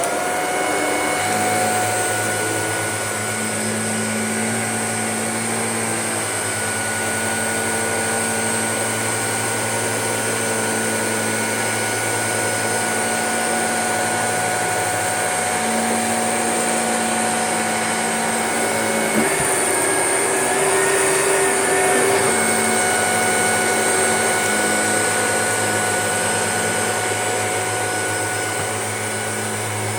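Shark DuoClean vacuum cleaner running steadily over a faux fur rug: a steady motor hum with a high whine on top, shifting briefly about two-thirds of the way through.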